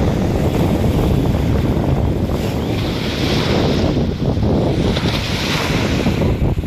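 Sea wind buffeting the microphone over the wash of surf on the shore, with two waves swelling up and hissing in, about three and five and a half seconds in.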